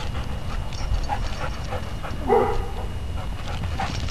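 A dog barks once, a short bark a little over halfway through, over a steady low background rumble.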